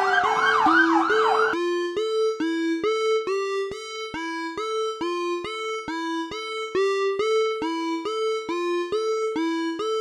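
Electronic background music with a steady, repeating two-note figure. Over the first second and a half, a police van's siren yelps in fast rising and falling sweeps, then cuts off suddenly.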